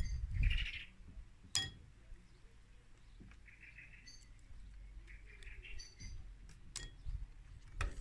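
Small garden birds chirping in short repeated calls and trills, with a few sharp clicks of sea snail shells being handled and dropped into a bowl. A brief muffled thump sounds right at the start.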